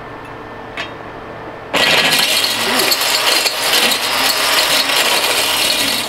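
Mighty Mill hammer-mill ore crusher, driven by a corded Ryobi angle grinder, starts abruptly about two seconds in. It runs at full speed as its hammers shred an electronic connector fed into it.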